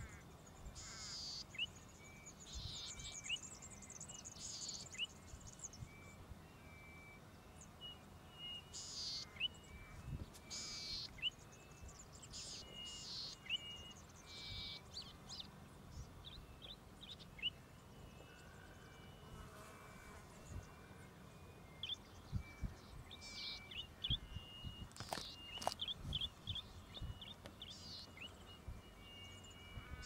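Golden-headed cisticola singing: harsh, high buzzes alternating with short, clear, tinkling notes, repeated again and again.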